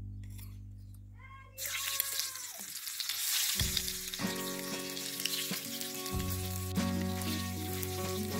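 Boiled eggs frying in hot oil in a miniature clay kadai: a sizzle that starts suddenly about a second and a half in and keeps going.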